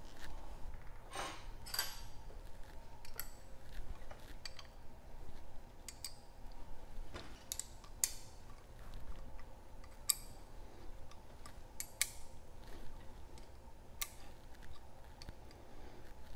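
Irregular sharp metallic clicks and clinks, some ringing briefly, from a hand tool working the top-plate bolts on a gas pressure regulator's spring tower as they are tightened down.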